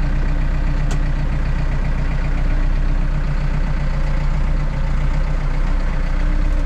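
Farm tractor's diesel engine running steadily while carrying a silage bale on the front loader, with a brief click about a second in.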